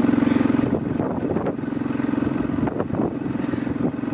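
Small vehicle engine running steadily while being ridden, with fine rapid pulsing. It eases off briefly about a second in and again near the end.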